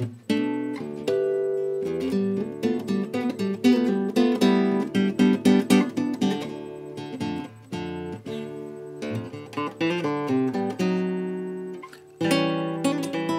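Aria AC25CE steel-string acoustic cutaway guitar being played in drop D tuning, with a mix of strummed chords and quick picked notes. The playing pauses briefly before a fresh chord rings out near the end.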